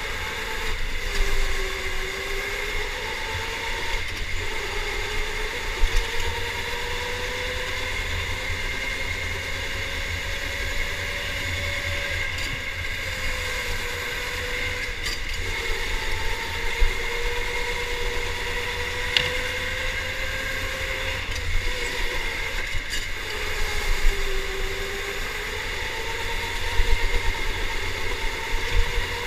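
Electric go-kart motor whining as the kart drives a lap, the whine's pitch rising and falling with speed, over a low rumble of tyres and vibration heard from on board. A few sharp knocks stand out, one about six seconds in and a couple near the end.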